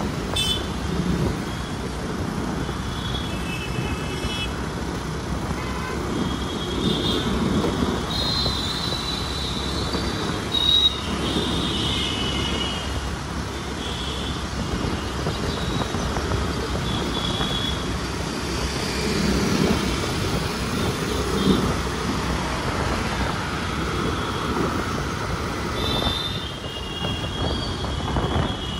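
Busy city road traffic: a steady rumble of engines and tyres, with vehicle horns honking many times, some short toots and some held longer.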